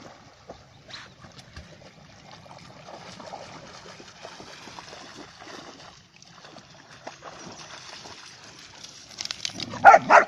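Dogs swimming and wading in a shallow river, water sloshing and splashing around them. Near the end, a few loud short barks as the dogs tussle on the bank.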